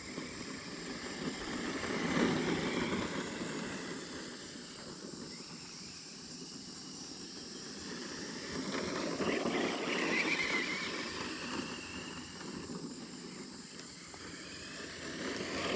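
Crickets chirping steadily outdoors, with a rushing noise that swells and fades a few times, including a brief rising and falling whine about ten seconds in.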